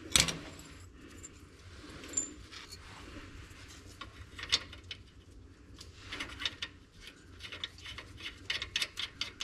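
A single sharp metal knock just after the start, then scattered light clinks of hand tools on the shock mount. In the last few seconds comes a quick run of ratchet-wrench clicks.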